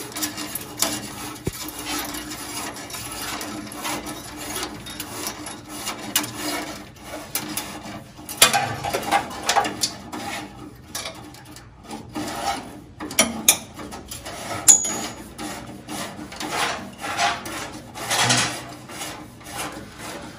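A steel accelerator cable on a 1962 Volkswagen Type 2 being pushed by hand through its guide tube, scraping and rubbing in irregular strokes with a few sharp clicks.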